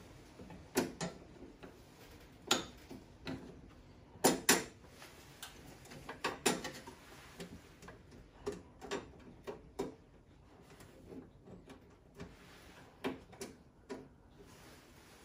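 Irregular clicks and knocks of parts being handled and fitted inside an open gas boiler around its fan housing, loudest as a pair of knocks about four seconds in.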